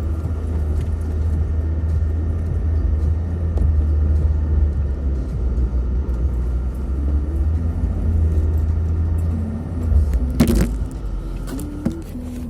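Land Rover Discovery 2 driving, with a heavy, steady low rumble from the engine and drivetrain. The rumble eases about ten seconds in, and a sharp knock follows.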